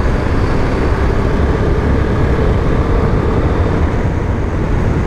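Steady wind rush and engine drone from a BMW G310GS motorcycle with its single-cylinder engine, riding at a constant pace on a paved road, heard from the rider's camera.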